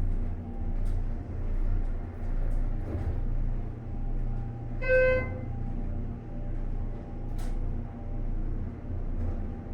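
Schindler 330A inground hydraulic elevator running, a steady low hum and rumble of the drive and moving car. A short electronic beep sounds once about five seconds in, and there are a few faint ticks.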